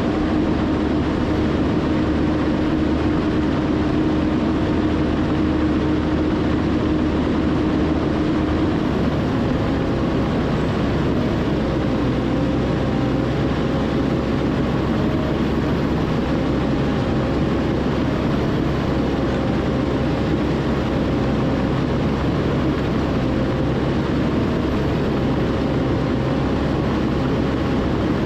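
John Deere 450K LGP crawler bulldozer running steadily. A steady hum gives way about nine seconds in to fainter, higher whines.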